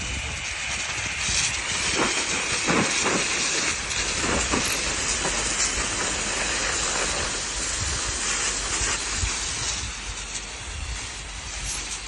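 Fire hose nozzle spraying a steady, hissing jet of water onto burnt ground and rocks, with a few short knocks about two to four seconds in.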